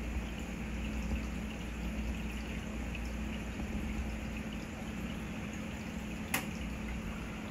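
Saltwater aquarium's water circulation running: a steady wash and trickle of moving water with a constant low pump hum. There is a single sharp click about six seconds in.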